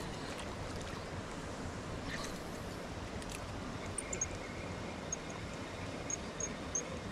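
Shallow river running over a stony bed, a steady rushing. From about four seconds in, short high-pitched chirps repeat two or three times a second.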